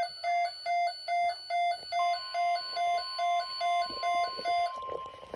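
NOAA weather alert radio sounding a severe thunderstorm watch: a rapid electronic alarm beeping, about two and a half beeps a second, and about two seconds in the steady 1050 Hz weather radio attention tone joins it. The beeping stops near the end while the attention tone carries on.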